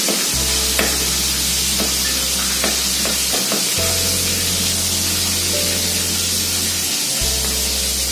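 Tilapia frying in hot oil, a steady sizzle, with a few light knife taps on a plastic cutting board as chillies are sliced. Faint music underneath.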